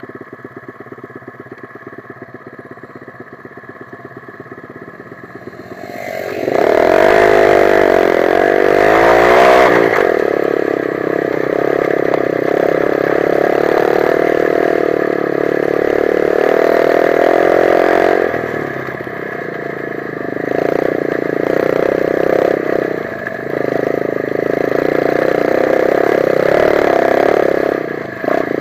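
125 cc dirt bike engine idling with an even beat, then revving up about six seconds in as the bike pulls away. It runs loud under load for the rest of the stretch, easing off and picking up again a few times.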